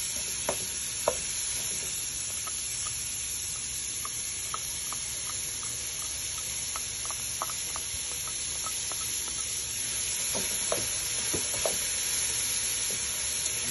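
Shredded carrots and sliced onions sizzling steadily in a frying pan while a slotted spatula stirs them, scraping and tapping the pan. There are a few sharper knocks about a second in and again near the end.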